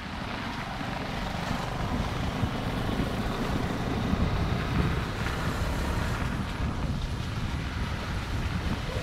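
Dirt bike engine running while riding, with wind buffeting the microphone.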